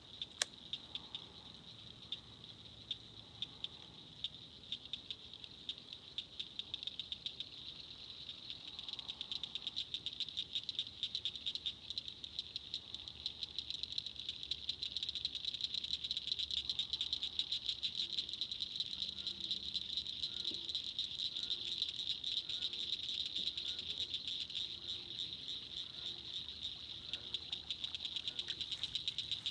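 Evening insect chorus: a dense, rapid, high-pitched pulsing that grows louder about halfway through.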